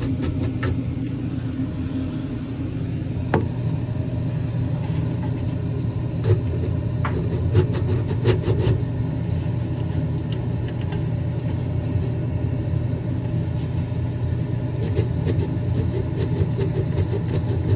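A steady low machine hum, with light metallic clicks and clinks as the transmitter tube's metal chimney is worked up off the tube, a few at a time, with a cluster near the end.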